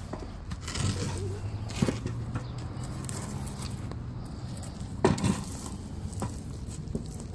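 Scuffs and knocks of a shoe and a wooden stick working around a metal fire pit, with a sharp knock near two seconds in and the loudest about five seconds in.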